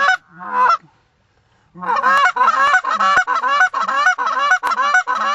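Goose honking and clucking, close and loud: a couple of calls, a short pause, then from under two seconds in a fast run of honks at about three or four a second.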